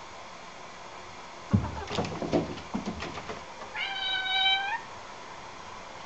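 A thump and a few light knocks, then a domestic cat meows once, a level call about a second long.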